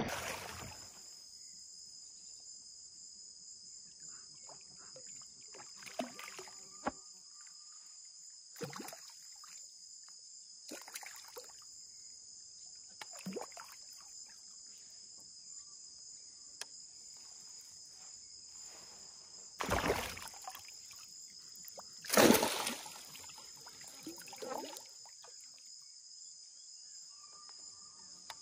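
Steady high-pitched drone of a rainforest insect chorus, with scattered water splashes and sloshes every few seconds, two louder splashes about two-thirds of the way through.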